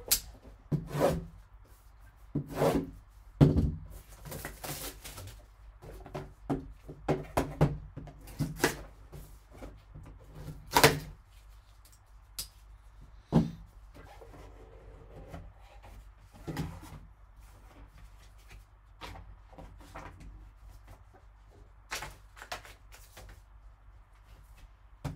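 Hands unwrapping and opening a shrink-wrapped cardboard trading card box: plastic wrap crinkling and tearing, cardboard sliding and tapping, and the foam insert being handled, in irregular sharp crackles and rustles.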